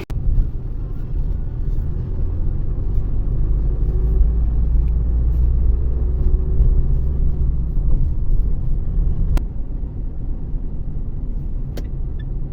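Low rumble of a car driving, heard from inside the cabin: engine and road noise, easing off a little about nine seconds in, with two sharp clicks near the end.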